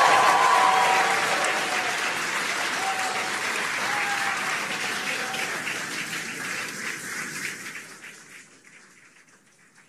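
Crowd applauding, loudest at first and fading away over the last few seconds.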